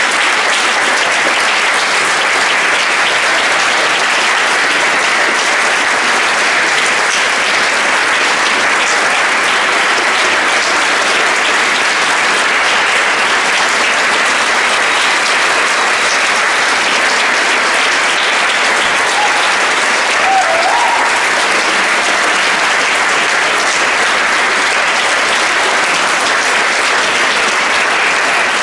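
Audience applauding: steady, sustained clapping from a hall full of seated listeners.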